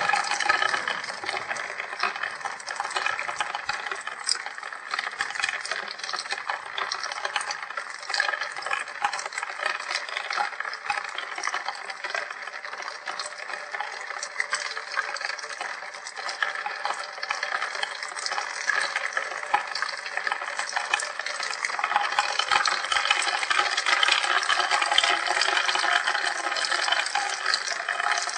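Steady rain falling close to the microphone, with many small drops ticking and splashing, a little heavier near the end.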